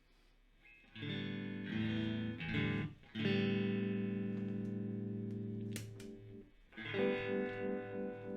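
Electric guitar played through a Moen Jimi Nova univibe pedal: chords come in about a second in, then a long ringing chord. A new chord near the end throbs with the pedal's pulsing modulation, about twice a second.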